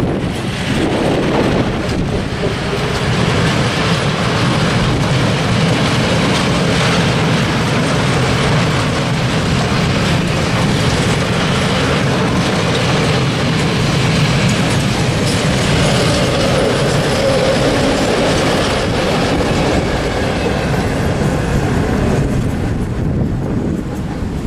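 Freight train hauled by an ET22 electric locomotive passing close by: loud, steady noise of the wagons' wheels running on the rails, fading away near the end as the last wagon passes.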